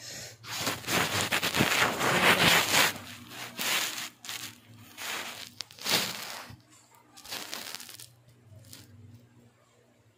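Rustling and crinkling handling noise in irregular bursts, densest during the first three seconds, then shorter scattered bursts that thin out toward the end.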